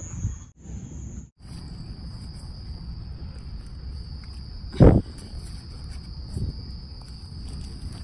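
Night insects chirring in a steady high-pitched drone, which briefly cuts out twice near the start and comes back at a lower pitch. A single dull thump about five seconds in is the loudest sound.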